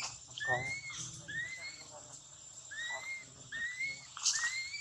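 Newborn macaque crying: a string of short, high-pitched squeals, each rising and then dropping, repeated about every half second to second.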